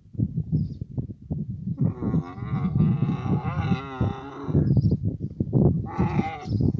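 Dromedary camels mating, calling: a long, wavering groan starts about two seconds in, a shorter call comes near the end, and low grunting runs between the calls.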